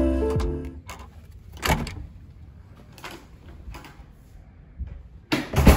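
Soft guitar background music fading out, then a hotel room door being unlocked with a key card and opened: a few short clicks and knocks, and a louder bump near the end.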